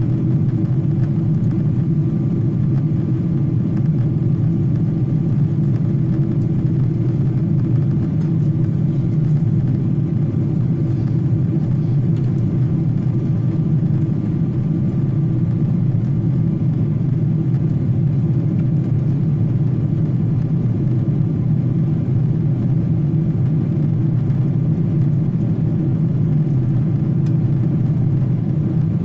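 Steady low vehicle rumble that holds an even level without rising or falling, with a faint steady whine above it.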